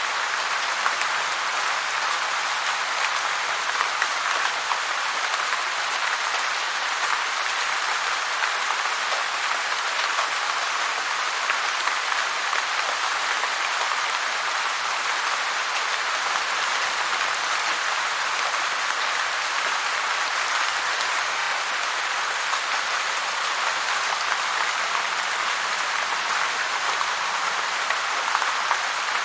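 Heavy rain falling steadily: a dense, even rush of countless drops that never lets up.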